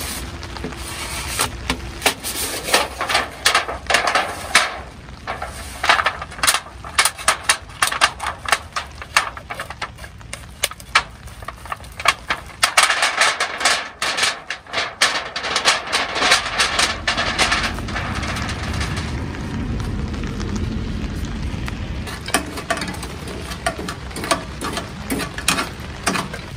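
Thin stainless-steel stovepipe of a homemade wood stove being taken apart and rolled up: a quick run of metallic clicks, knocks and rattles as the pipe sections, hose clamps and springy sheet are handled. In the second half the clicks thin out under a steady low rumble.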